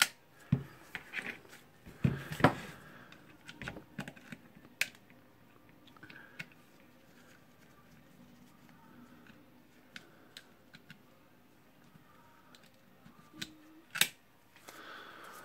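Light clicks and taps of a small screwdriver and carbon brushes being fitted into the brush holders of a Makita HR2811FT rotary hammer's motor housing. The clicks cluster in the first few seconds, thin out to a quiet stretch in the middle, and end with one sharp click near the end.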